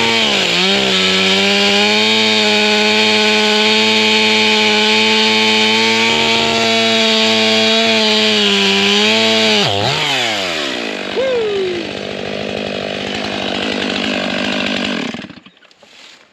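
Two-stroke chainsaw held at full throttle for about ten seconds, as when bucking a white oak log. It then drops back to idle and is switched off near the end.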